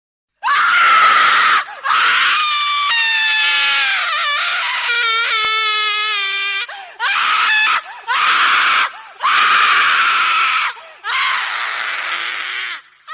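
A series of about six separate women's screams of terror. Most are raspy, full-throated screams; the longest, in the middle, is a high, wavering shriek that bends up and down in pitch.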